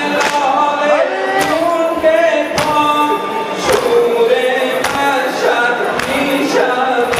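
Men chanting a Muharram mourning lament together, with chest-beating (sineh-zani) thumps landing in time about once a second.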